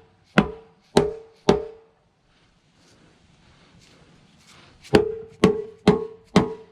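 Seven sharp hammer blows on metal, each with a short ring, struck about two a second: three at the start and four near the end after a pause. They knock the oil pan loose from the Jeep 4.0 inline-six block.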